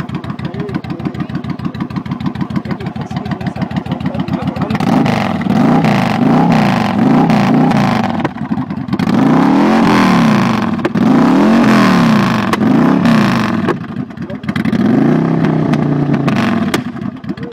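Harley-Davidson V-twin motorcycle engine idling with an even pulsing beat, then revved repeatedly for about ten seconds, the pitch rising and falling with each blip of the throttle, before settling back to idle near the end.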